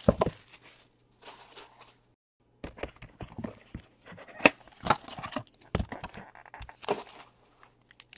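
Trading cards and a small cardboard card box being handled: an irregular run of sharp taps, clicks and card slaps with some crinkling, with a short lull about two seconds in.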